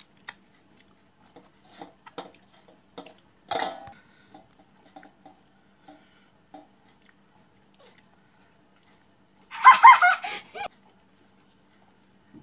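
Scattered soft clicks and clinks of a steel plate and bowl as food is handled and eaten by hand, with one sharper knock about three and a half seconds in. Near ten seconds comes a loud, high, wavering sound lasting about a second, the loudest thing here.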